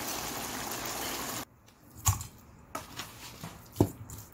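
Gochujang duck stir-fry sizzling steadily in a pan, cut off abruptly about a second and a half in. Then a few knocks and thumps as raw duck meat is handled in a stainless steel mixing bowl, two of them louder than the rest.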